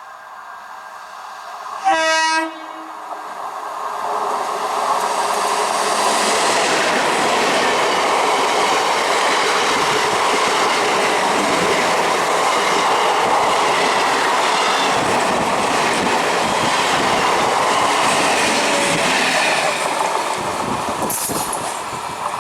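An Indian electric train sounds one short horn blast about two seconds in. It then passes close by, and the loud rumble and clatter of its wheels on the track builds up and holds steady. The noise eases off near the end.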